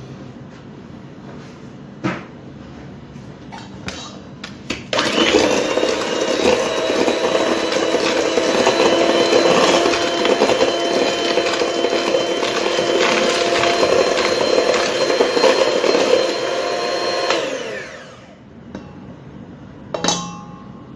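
Electric hand mixer beating cake batter in a stainless steel bowl. The motor starts about five seconds in, runs steadily with a whine for some twelve seconds, then winds down. A couple of sharp knocks follow near the end.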